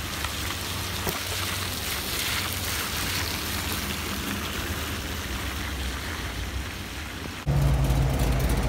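Steady hiss of rain and car tyres on a soaked road surface as a Porsche Panamera drives slowly past, with a low engine hum underneath. About seven and a half seconds in, this cuts suddenly to a louder classic car engine running steadily at low speed.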